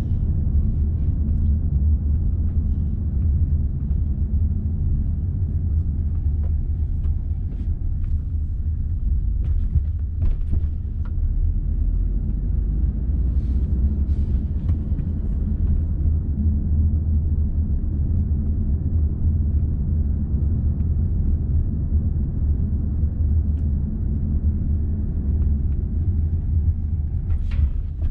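Steady low rumble of a moving car's engine and road noise, heard from inside the cabin, with a few faint knocks near the middle.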